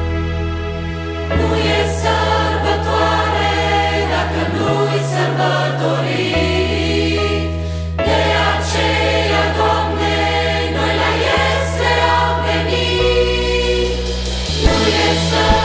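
Mixed adult and children's choir singing a Christian song in harmony, coming in about a second in over sustained bass guitar notes, with piano and light percussion accompaniment.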